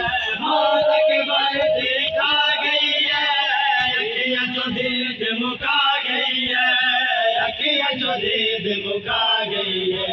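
Men's voices chanting a noha, a Shia mourning lament, in a loud sung chant that carries on without a break.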